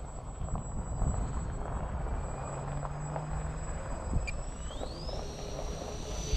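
The brushless electric motors of a remote-control B-24 Liberator model are whining over a low rumble. Their pitch climbs steeply about five seconds in, then holds high.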